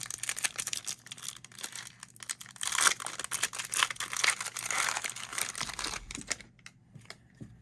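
Cellophane wrapper of a Panini Mosaic football card cello pack crinkling and tearing as it is opened by hand, loudest about three seconds in. It dies down after about six seconds.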